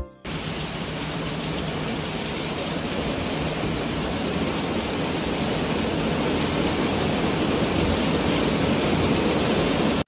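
Steady rain falling hard on wet paving, an even hiss of many drops.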